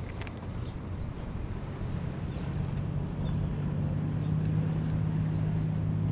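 An engine's steady low hum, growing louder from about two seconds in.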